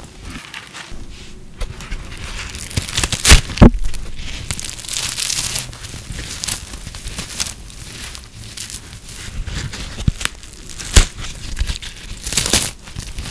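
Hands crushing and breaking brittle microwave-puffed soap: a dry, gentle crunching and crackling, broken by sharp snaps. The loudest snaps come about three and a half seconds in and again about eleven seconds in.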